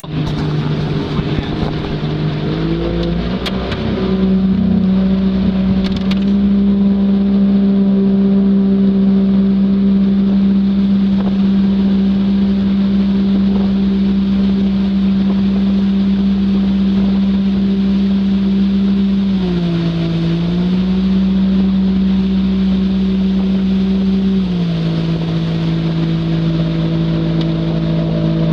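Jet boat engine running under way. Its pitch rises a few seconds in as it speeds up, dips briefly about two-thirds through, then settles a little lower near the end.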